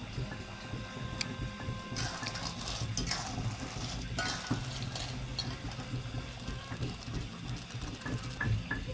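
A cooking utensil scraping and clinking against a pot several times, over a steady low hum, with a few sharp clicks near the end.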